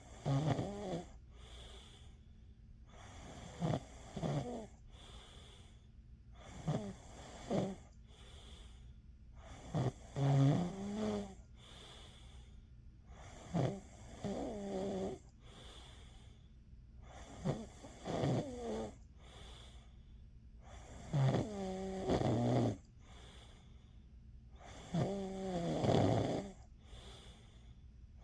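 A person snoring in slow, regular breaths, eight snores about every three and a half to four seconds. Each snore starts abruptly and tails off in a wavering, pitched drone.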